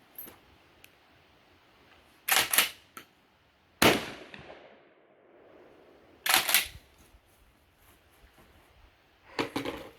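Four 12-gauge shotgun shots fired with birdshot, spaced unevenly over several seconds, the second trailing a brief ringing echo.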